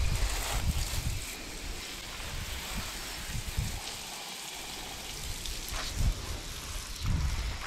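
Water spraying from a garden hose's spray nozzle onto a horse's leg and the wet brick paving: a steady hissing patter. Louder low rumbles come in the first second and again about six and seven seconds in.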